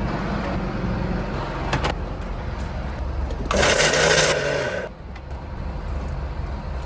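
Steady low drone of a fishing boat's engine, with a louder burst of hiss about three and a half seconds in that lasts about a second.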